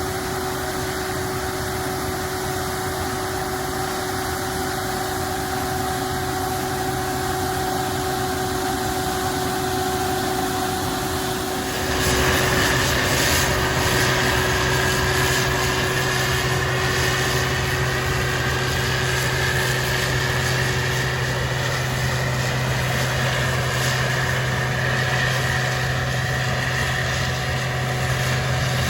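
Farm machinery engine running steadily during corn harvest. About twelve seconds in it gets louder, with a deeper drone and a slowly rising whine joining in, as a machine comes under load.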